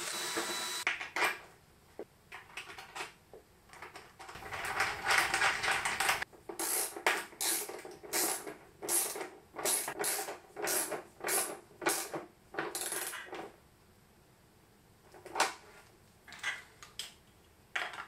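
A cordless drill runs and stops about a second in. Then come small metallic clinks of bolts and hardware being handled, and a socket ratchet clicks in a run of quick strokes, about two a second for some seven seconds, as a nut on a fuse holder is tightened.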